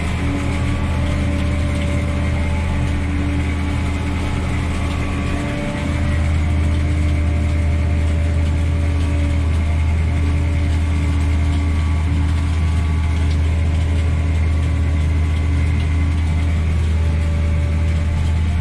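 A tractor's diesel engine runs steadily with a deep drone, heard from inside its cab. About six seconds in the sound steps up louder and stays steady, as a sugarcane harvester works alongside, loading chopped cane into the tractor's wagon.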